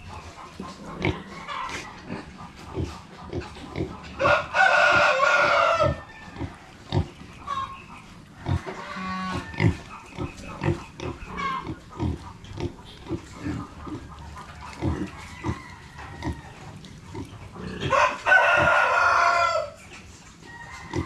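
Pigs grunting in short, low, irregular grunts as two pigs touch noses through the pen bars. A rooster crows twice, about four seconds in and again near the end, each crow about two seconds long and the loudest sound.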